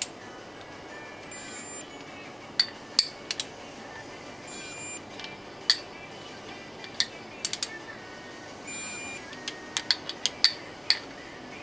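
Metal tools and engine parts clinking against one another, a dozen or so sharp irregular clinks, over faint background music.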